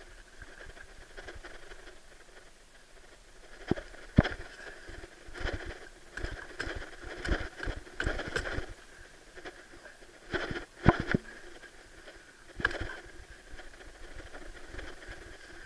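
Irregular knocks and thumps in the bottom of a small boat as a large landed cod is handled, with two loudest hits, one about four seconds in and one about eleven seconds in.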